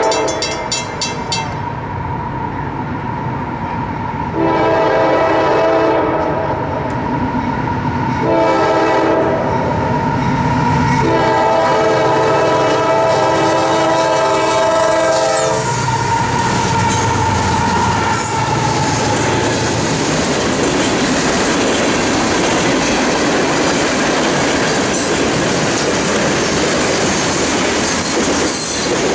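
Horn of a CSX GE AC6000CW locomotive sounding the grade-crossing signal: the end of one long blast, then a long, a short and a final long blast, over a steady high ringing tone. The locomotives then pass with a heavy diesel rumble, followed by the steady clatter and rush of freight cars rolling by.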